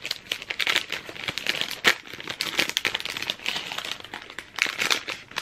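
Plastic wrapper of an ice cream bar crinkling and tearing as it is pulled open by hand, with irregular crackles and one sharper crackle about two seconds in.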